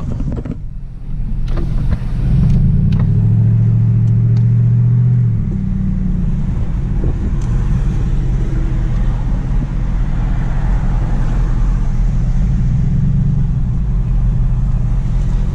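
Car engine and road noise heard from inside the cabin, a steady low hum that swells louder for a few seconds about two seconds in, then settles back.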